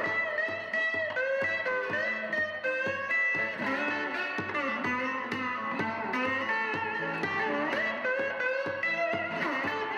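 Theme music with a steady beat.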